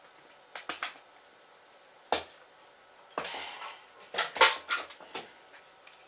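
Hard objects being handled as a spotlight is set up and plugged in. There are a few separate clicks and knocks, a short rustle, then a burst of clattering about four seconds in, which is the loudest part.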